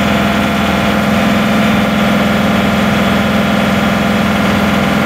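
John Deere 2038R compact tractor's three-cylinder diesel engine running steadily at about 2,500 rpm, its rated speed.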